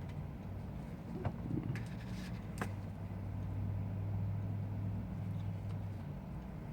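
Low steady hum, a little louder in the middle, with a few small sharp clicks about one and two and a half seconds in as small phone parts are handled.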